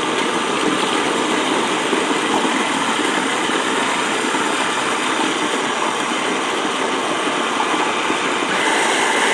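MEGAWISE 800-watt stick blender running steadily at about its middle speed on the chopper attachment, blending yogurt, fruit chunks and banana; it gets a little louder near the end.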